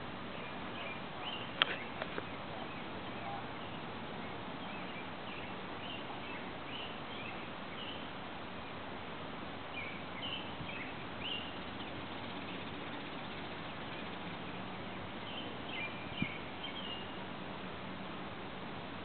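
Outdoor ambience: a steady hiss with faint, scattered bird chirps throughout, and a couple of sharp clicks about two seconds in and again near the end.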